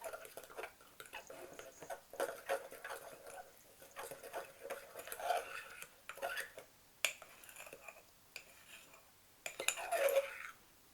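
Metal fork stirring thick cake batter in a ceramic mug, with irregular scraping and clinking against the mug's sides and a sharper clink about seven seconds in.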